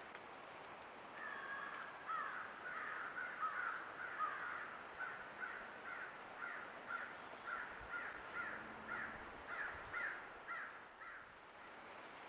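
A bird calling a long run of short, harsh notes, irregular at first and then about two a second, over a steady background hiss.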